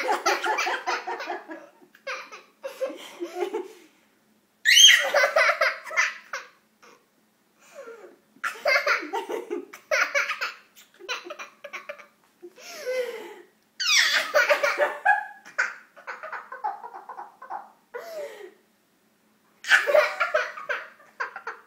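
A toddler and a woman laughing hard together in repeated bursts, with brief pauses between the fits.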